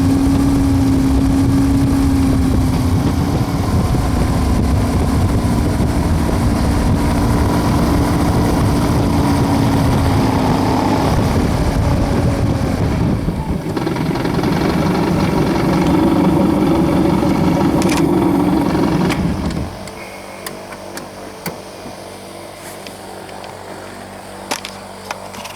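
WAR Corsair replica's piston engine running hard on a high-speed taxi pass down the runway, its pitch shifting a little partway through. About twenty seconds in, the sound drops sharply to a much quieter hum, with scattered clicks.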